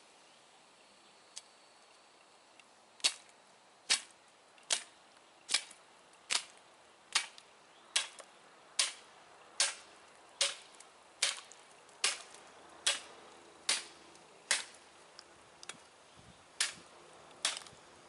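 Sharp, evenly spaced strikes, about one every 0.8 seconds, beginning about three seconds in: a rib chopper being struck through a hog carcass's backbone in light, repeated blows, nearly through the bone.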